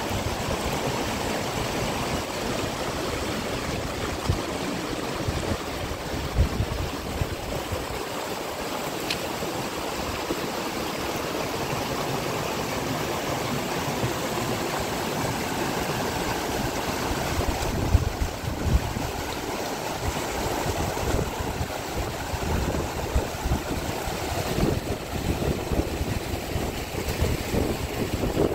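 Steady rush of water noise, typical of heavy rain pouring down in a mountain storm, with wind gusting on the microphone as uneven low thumps.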